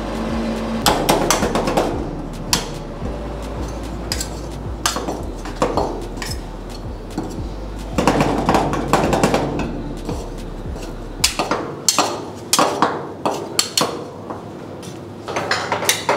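Two metal spatulas chopping and scraping ice cream on a frozen cold-stone plate, making clusters of quick metallic taps and clinks. A low hum underneath stops about three-quarters of the way through.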